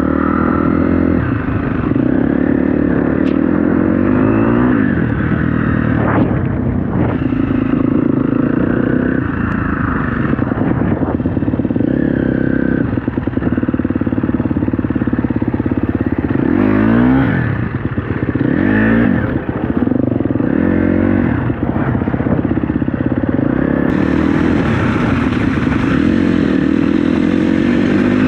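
KTM 250 SX-F dirt bike's single-cylinder four-stroke engine running under load off-road, its pitch rising and falling again and again as the throttle is opened and closed, with a few knocks from the bike over rough ground.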